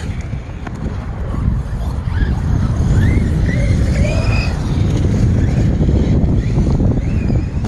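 Electric RC truck driving through snow, its motor a faint whine that rises and falls with the throttle, under a heavy low rumble.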